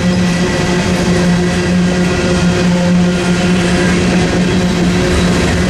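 Freight cars, covered hoppers, rolling past on the rails with a steady loud rumble of wheels on track and a steady low hum under it.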